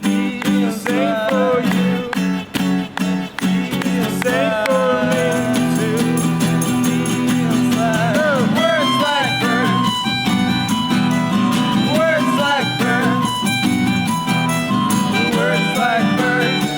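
Band music with guitars over a steady drum beat and sliding, wavering melody lines.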